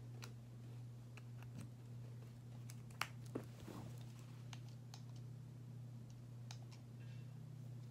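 Light clicks and taps of a curling iron being handled, with two sharper clicks about three seconds in, over a steady low hum.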